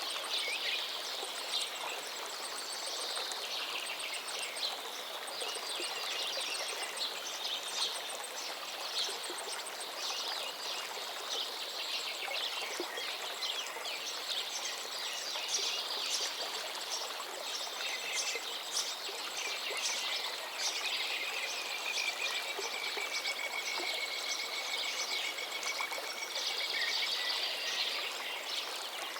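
Steady rush of waterfall water with birds chirping and trilling over it, and one long even trill near the end.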